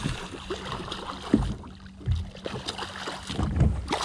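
A hooked striped bass thrashing and splashing at the water's surface beside a boat as it is reeled in. Irregular slaps and knocks of water, loudest about a second and a half in and again near the end, over a faint steady low hum.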